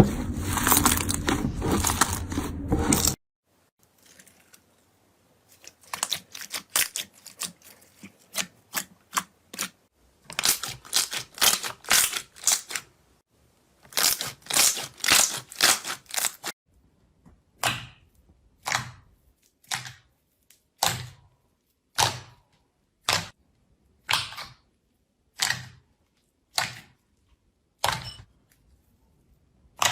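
Slime being handled: a loud stretch of crunching, then quick runs of crackling clicks, then single sharp pops about once a second.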